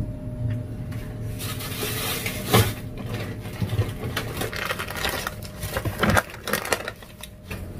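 Plastic grocery packaging rustling and crinkling as packets are handled and pulled out of a cardboard box, with a couple of soft knocks of items against the box.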